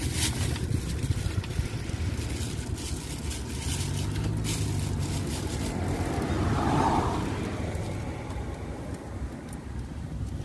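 Road traffic running past a roadside stall, with a low engine drone that swells again about four seconds in. Over it, a kitchen knife taps faintly on a wooden cutting board as limes are sliced.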